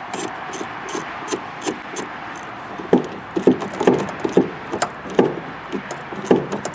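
A screw being tightened with a hand tool: a run of sharp clicks, about three a second, then several louder knocks and clatters about three seconds in.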